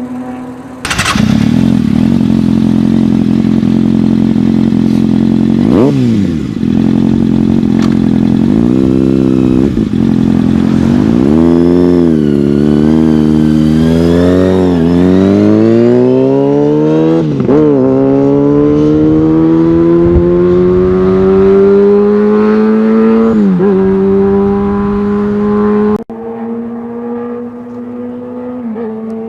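Kawasaki Ninja ZX-6R 636 inline-four with an M4 aftermarket exhaust pulling away under throttle. The engine note jumps up about a second in. It then climbs in pitch in several runs, each broken by a brief sharp drop as the bike shifts gears. Near the end it cuts abruptly to a quieter, steady engine note.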